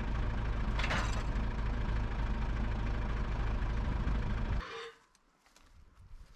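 Sawmill engine running steadily, then cutting off abruptly about four and a half seconds in.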